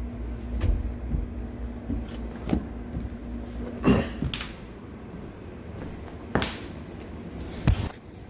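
Half a dozen knocks and bangs of a dishwasher being handled and pushed against a tight cabinet opening. A steady low hum stops about four seconds in.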